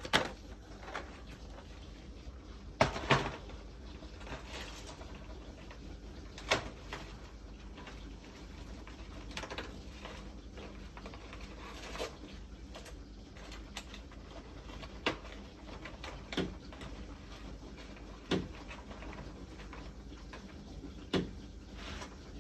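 Sharp ticking knocks from inside an apartment ceiling around the washing-machine drain pipe, about nine of them, irregularly spaced from a fraction of a second to several seconds apart. The cause is unknown; the resident suspects the upstairs unit's washing machine.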